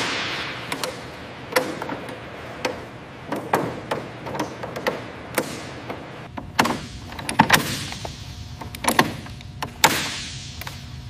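Hand tools working on metal fittings: irregular metallic clicks and knocks, with a few louder bangs whose ring fades slowly in a large reverberant hall, one near the end.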